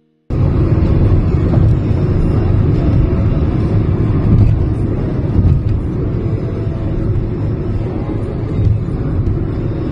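Road and engine noise inside a moving car's cabin: a steady low rumble that cuts in suddenly about a third of a second in.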